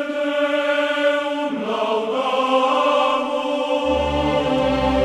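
Slow background music of sustained, choir-like chords that shift about a second and a half in; a deep bass note comes in near the end.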